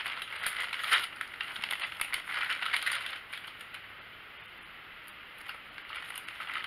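Small clear plastic parts bag crinkling and rustling with small clicks as tiny screws and propeller covers are put back into it. It goes quieter about three seconds in and picks up again near the end.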